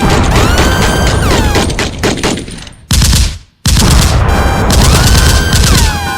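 Loud noise track for scaring off wild animals: a dense gunfire-like crackle layered with siren-like tones that rise and level off. It cuts out briefly about three seconds in, then starts again.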